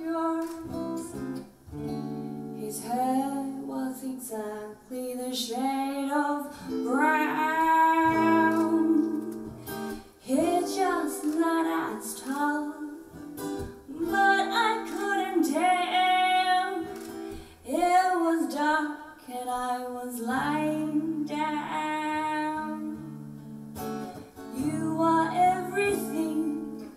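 A woman singing a song with long held notes into a microphone, accompanied live by a steel-string acoustic guitar.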